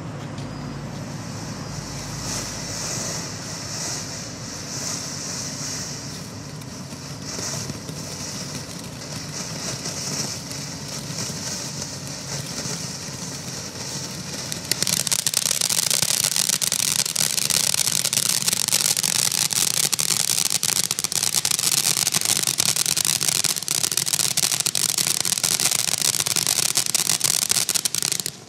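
Black Cat Bug Zapper ground fountain firework spraying sparks with a steady hiss. About halfway through it switches abruptly to a much louder, dense crackling that stops suddenly near the end.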